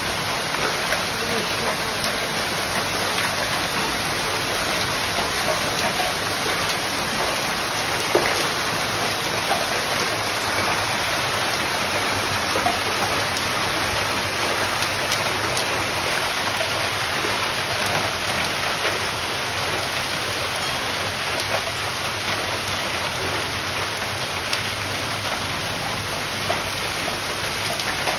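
Steady rain, an even hiss with scattered small drop ticks.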